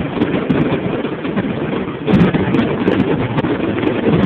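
Fireworks going off in rapid succession: a continuous rumble of overlapping shell bursts with many sharp crackling pops through it.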